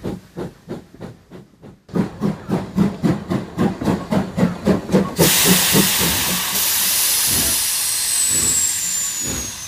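Cartoon steam-locomotive sound effect: steady chuffing that fades, breaks off briefly, then comes back louder and faster for about three seconds. It gives way to a long hiss of released steam as the train pulls up, with a faint falling whistle-like tone near the end.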